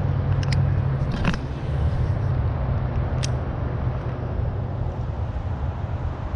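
Steady low rumble throughout, with a few light clicks in the first three seconds from a baitcasting rod and reel being handled and reeled in.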